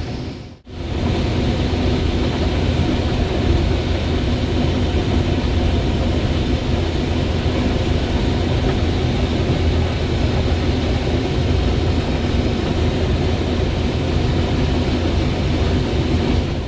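Combine harvester running steadily while harvesting corn, a heavy engine and machinery sound strongest in the low end, with no change in load.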